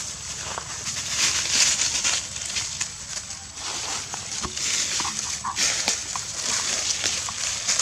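Dry fallen leaves rustling and crackling as macaques walk and forage over the leaf litter. The rustling comes in patches of a second or so, with scattered sharp clicks.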